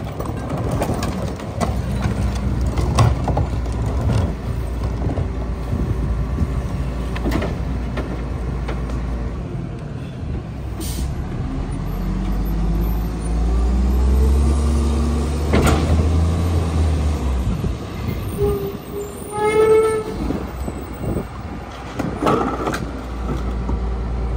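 Mack MR garbage truck's diesel engine running, revving up for several seconds in the middle as the Leach rear loader's hydraulic packer blade cycles through the hopper. Knocks of plastic carts being tipped against the hopper come near the start and again near the end.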